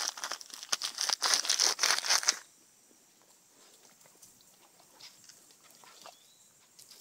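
Close crinkling and crackling of something being handled, for about the first two and a half seconds; it stops abruptly, leaving only faint small rustles.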